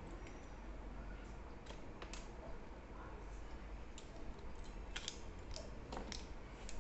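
Small metal parts of a pencil sharpener's table clamp and its tool being handled, giving scattered light clicks and taps, closer together near the end.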